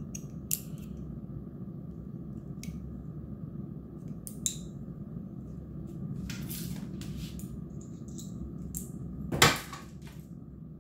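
Sharp metal clicks and clinks of pliers gripping and tearing the nickel strip tabs off 18650 battery cells, a few separate snaps spread out, with a louder clatter about nine seconds in, over a steady low hum.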